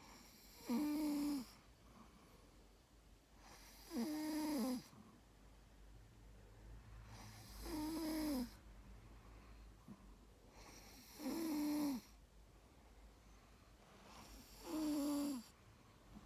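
A sleeping dog snoring: five pitched snores, each just under a second long, coming about every three and a half seconds.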